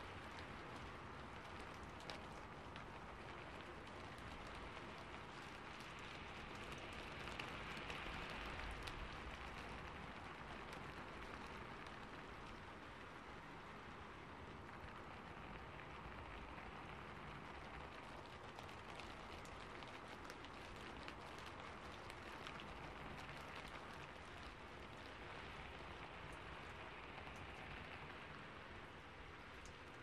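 Rain beating on a roof: a steady, even patter of many drops, swelling a little about eight seconds in.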